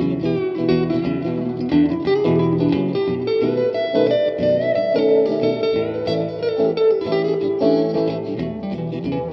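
Background music: quick plucked guitar notes.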